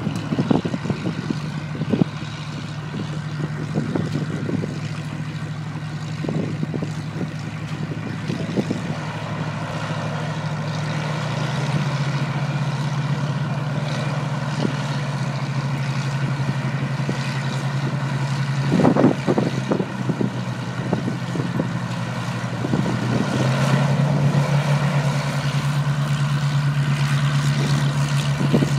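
Hawker Hurricane fighters' Rolls-Royce Merlin V12 piston engines running steadily as the planes taxi. The engine note drops a little about a third of the way in and rises again near the end. A few short low bumps come through, the strongest about two-thirds of the way in.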